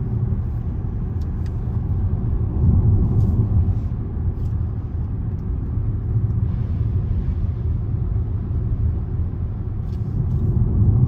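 Steady low road rumble of a car heard from inside the cabin, engine and tyres running at a constant speed, with a brief faint hiss about six seconds in.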